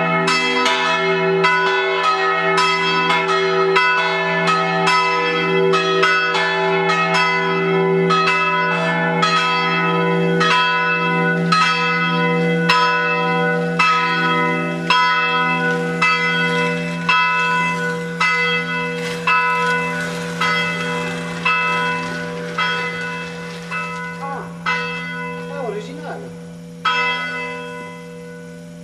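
Three swinging church bells of Senigallia's cathedral of San Pietro Apostolo ringing a solemn full peal (distesa), hung for half-swing (mezzo slancio). Their strokes come thick at first, then grow sparser and fainter as the swing dies away and the bells come to rest, with the bells' low hum lingering underneath.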